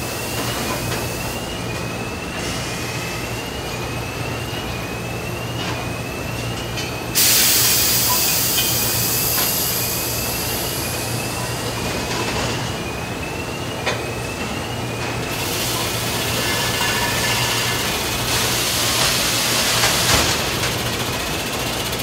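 Cylinder-head casting knock-out machine and surrounding factory machinery: a steady hum under a short rising chirp that repeats about once a second. About seven seconds in a loud hiss of compressed air starts and runs for about five seconds, with more hissing and a few sharp knocks later.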